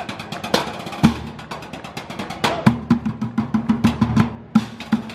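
Percussion music: fast drumming with many sharp strikes and repeated hits on a pitched drum.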